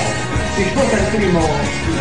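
Background music: a pop song with a singing voice over a steady beat.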